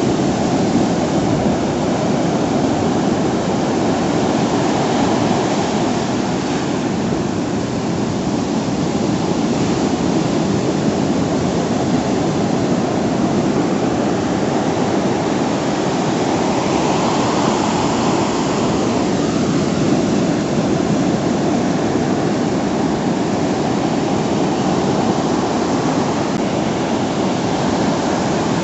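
Ocean surf breaking continuously: a steady rushing wash of waves.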